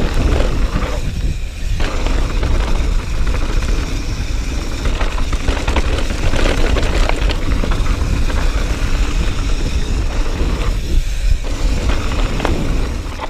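Mountain bike riding fast down a gravel and dirt trail: steady wind rumble on the camera microphone, tyres rolling over loose gravel, and short knocks and rattles from the bike over bumps.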